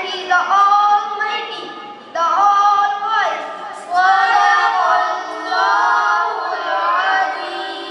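A boy reciting verses of the Quran in a melodic chanting style, one high voice in long phrases with drawn-out notes that bend and waver in pitch, with short breaths between phrases.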